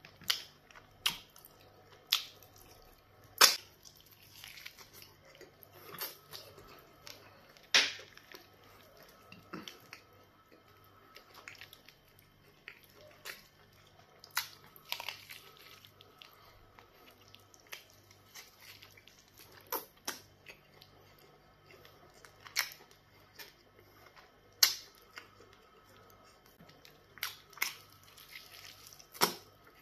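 Close-up wet chewing and mouth smacking while eating pounded yam fufu and black soup by hand, with sharp, irregular lip smacks every second or few over softer squelching.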